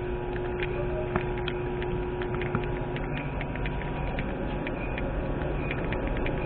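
Metra commuter train approaching the platform: a steady low rumble with many scattered light clicks and a faint steady tone that fades about three seconds in.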